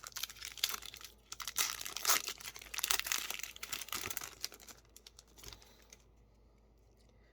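Foil wrapper of a Yu-Gi-Oh booster pack crinkling and being torn open, a dense run of crackles that dies down after about five seconds.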